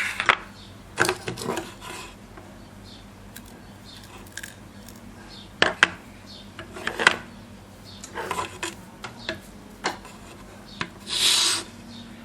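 Small hard objects being handled and worked by hand: scattered clicks and knocks with short scraping rubs, and a longer rasping scrape near the end.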